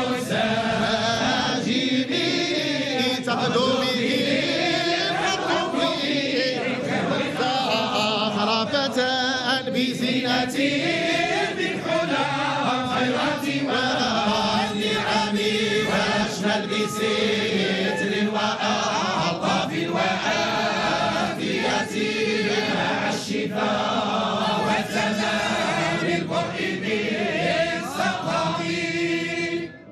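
A group of men chanting Islamic devotional praise poetry (madih nabawi) together in one continuous sung line, with a brief pause just before the end.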